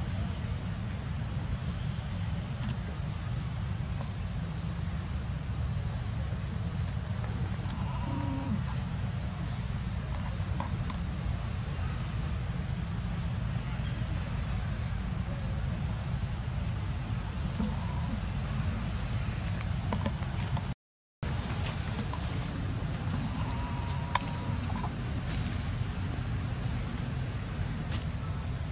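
Steady, high-pitched insect chorus that runs without a break, over a constant low rumble of wind on the microphone, with a few faint short calls in the background. The sound cuts out completely for a moment about two-thirds of the way through.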